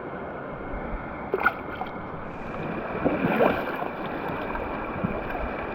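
Creek water running steadily, with a few short splashes about a second and a half in and again around three seconds in.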